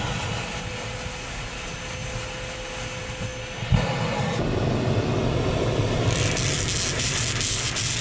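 Vacuum cleaner running steadily while it sucks up tinsel garland through its nozzle. About four seconds in there is a thump, and then the vacuum runs louder with a hiss as a thin cord is drawn into the nozzle.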